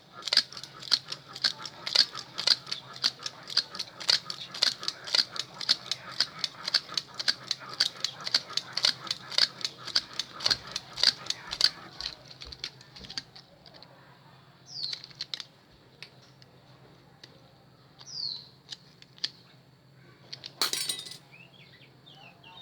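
Rapid ticking of copper magnet wire being wound into the slots of a power-drill armature, about four clicks a second over a low steady hum. The clicking stops about thirteen seconds in, leaving a few scattered clicks and short scrapes of wire.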